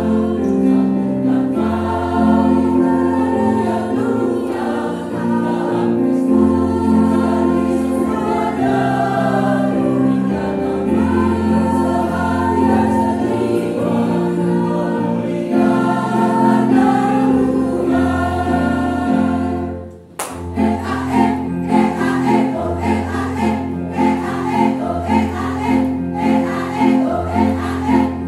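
Women's choir singing in parts over low held bass notes. About twenty seconds in the sound drops out for a moment, then the singing picks up again with a quicker, pulsing rhythm.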